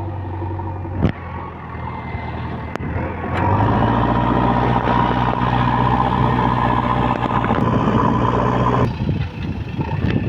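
Heavy diesel engine running, then speeding up and running louder under load for about five seconds from about three seconds in, before dropping back. A sharp knock sounds about a second in.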